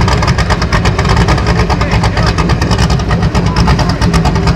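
Off-road race buggy engine running loud and steady, with a fast, dense rattle over a deep low drone.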